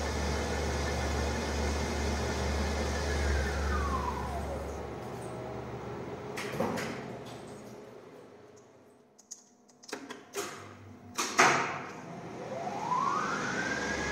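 Geared traction machine of a 1980s Schindler freight lift, driven by a variable-frequency drive: its steady high whine falls away as the car slows to a stop. A few sharp clacks follow while it stands, the loudest late on, and near the end the whine rises again as the machine starts the next run.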